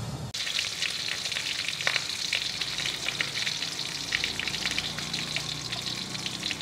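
Bánh xèo frying in a hot pan: a steady sizzle with frequent crackles and pops, starting abruptly just after the start.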